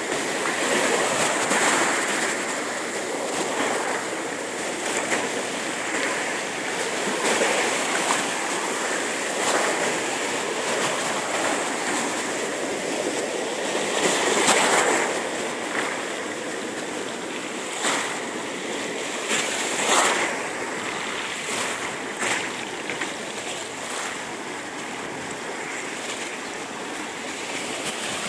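Small waves washing in over a pebble beach, foam surging and draining back through the stones, with a few louder splashes about halfway through and later.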